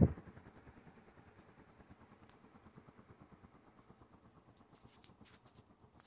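Airmaster Industrial ceiling fan running with a steady low whir, opened by a sharp thump right at the start. A few faint ticks sound over the whir.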